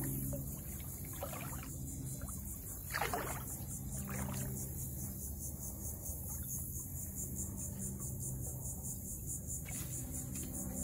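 Wading through shallow swamp water: a few irregular sloshing splashes of legs moving through the water, the loudest about three seconds in. Under them runs a steady, finely pulsing chorus of insects.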